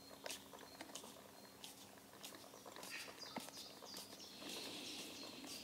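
Faint, scattered clicks and small scrapes of a screwdriver turning out a tight throttle-butterfly screw on a Weber 40 DCOE carburettor, with a faint rasp near the end. The screw is hard to turn because its thread was deliberately damaged to lock it in place.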